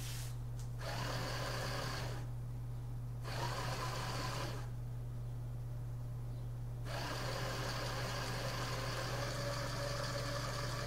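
Two small yellow plastic DC gear motors on a robot chassis, switched by a radio remote, whirring in starts and stops: a run of about a second, a second short run, then a longer run from about seven seconds in.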